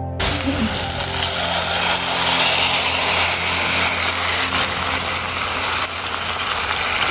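Loud sizzling of food frying in hot oil, starting suddenly just after the start as the food goes into the pan, over background music.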